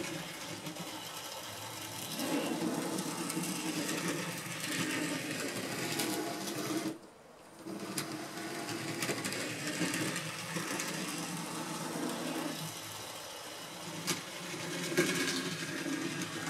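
OO9 narrow gauge model locomotive running on its track, its small electric motor whirring steadily, with a brief dropout about seven seconds in.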